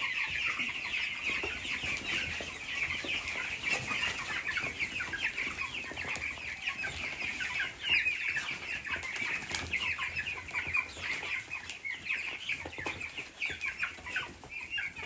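A brood of young chicks peeping all together, many high, short, overlapping chirps in a steady chorus.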